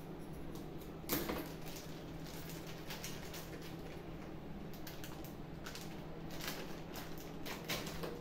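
Plastic spice packet crinkling and crackling in the hands while powdered turmeric is shaken out of it onto a steel plate: a string of sharp crackles and clicks, the loudest about a second in.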